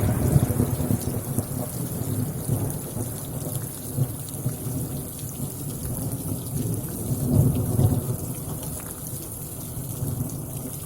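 Rain and rolling thunder: a steady rain hiss under low rumbles that swell a second or two in and again around seven to eight seconds in.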